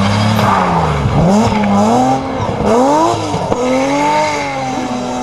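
BMW E30 rally car engine revving hard as it accelerates past and away. The pitch climbs in each gear and drops at quick upshifts about one, two and three and a half seconds in, then holds.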